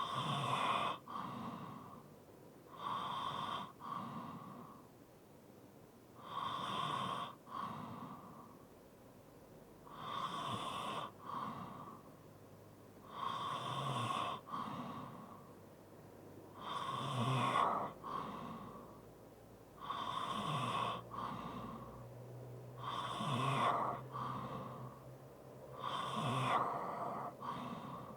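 A person's heavy breathing with light snoring, in a steady, regular rhythm of about one breath every three and a half seconds.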